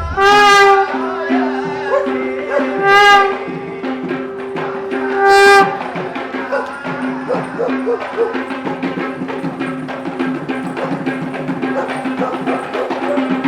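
Music: three loud, short wind-instrument blasts about two and a half seconds apart over a held note, followed by fast, dense drumming.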